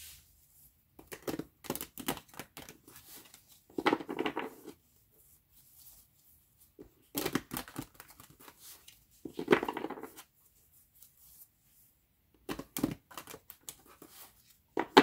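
A deck of tarot cards being shuffled by hand: about six short bursts of papery slapping and rustling, a couple of seconds apart.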